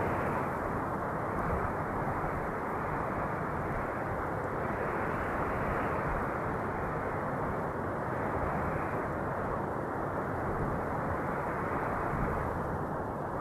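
Steady wind noise, a low rushing hiss that swells and eases gently every few seconds.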